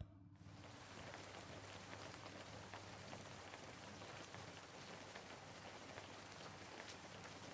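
Steady rain falling, an even hiss dotted with single drop ticks, coming in suddenly just after the start and then holding steady.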